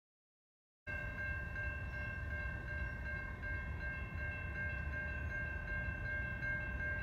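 Multi-chime locomotive air horn sounding one long, steady chord from a train not yet in sight, over a low rumble. It begins abruptly about a second in.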